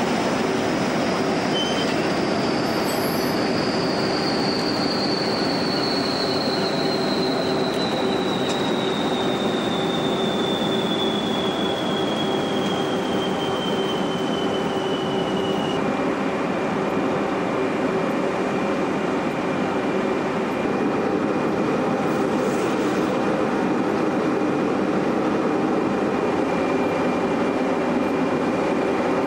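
SRN4 hovercraft's Proteus gas turbines running with the propellers turning: a steady, loud roar with a high turbine whine that slides slowly down in pitch for about fifteen seconds, then holds steady.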